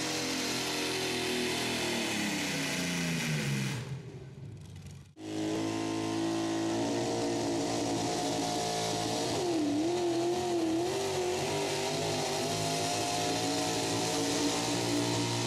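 Modified pulling-truck engines running at high revs under load while dragging a weight-transfer sled. About four seconds in, the first truck's revs fall away and the sound briefly drops out. The sound then comes back with a second pulling truck's engine held high, its pitch wavering up and down for a few seconds.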